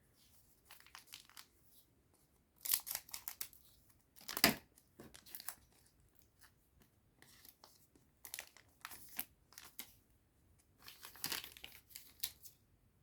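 Digimon Card Game booster pack wrapper being torn open and crinkled in several short bursts of ripping and rustling.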